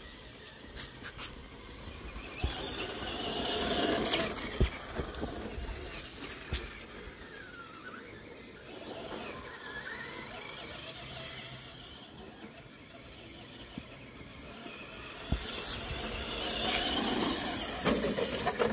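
Traxxas Slash 2WD electric RC short-course truck driving on dirt: its motor and drivetrain whine, rising and falling in pitch as it speeds up and slows. Scattered knocks come as it bounces, with a sharp one near the end as it hits the wall and tumbles.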